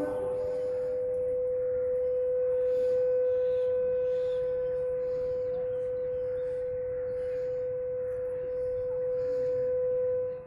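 A single steady, unwavering tone held for about ten seconds.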